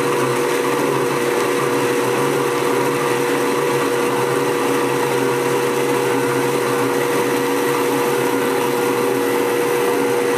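Blendtec blender running steadily on low speed, churning a thin liquid of pineapple, water and aloe vera, with one steady motor tone over the whir. It is kept on low so the aloe vera is only lightly blended.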